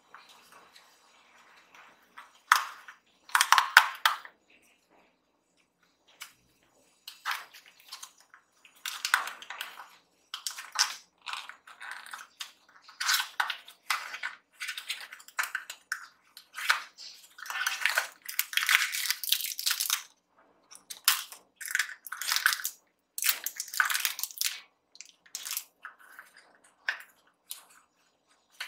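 Paperboard blind box being opened and unfolded by hand: irregular bursts of crinkling and rustling from cardboard flaps and paper and plastic wrappers, starting a couple of seconds in and coming and going with short pauses.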